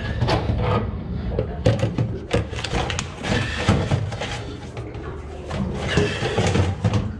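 Irregular knocks, scrapes and rubbing of hands working an old filter loose on a marine diesel engine, over a low steady rumble.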